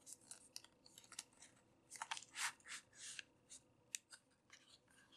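Faint handling noise of a small cardboard box's inner tray sliding out and the plastic bag of electronic components inside being crinkled: a run of short scratchy rustles, thickest about two to three seconds in.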